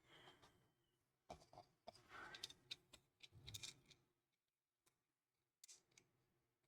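Near silence with scattered faint clicks and light taps from small plastic model parts being handled and pressed into place, most of them between about one and four seconds in.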